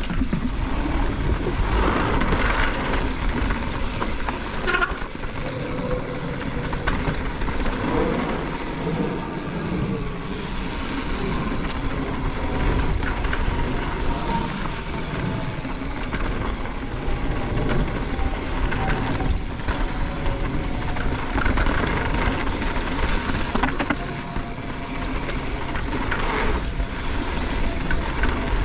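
Mountain bike riding fast down a dirt forest trail: a steady rush of wind on the microphone mixed with tyre noise and the bike rattling over the rough ground.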